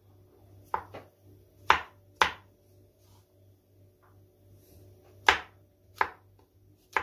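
Kitchen knife slicing mushrooms on a wooden cutting board: sharp, separate knocks of the blade striking the board at irregular intervals. There are four in the first two and a half seconds, then a pause of about three seconds, then three more about a second apart.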